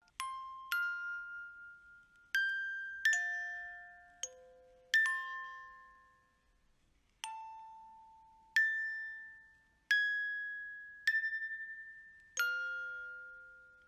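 Slow background music of single glockenspiel-like chime notes, struck one at a time every second or so, each ringing out and fading, with a longer pause in the middle.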